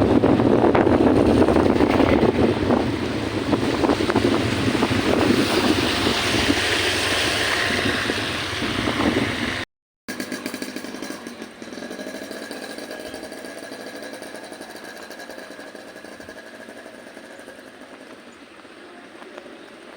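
A vehicle engine running under loud wind buffeting on the microphone. About ten seconds in, the sound cuts off abruptly. A quieter, steady engine hum follows and slowly fades.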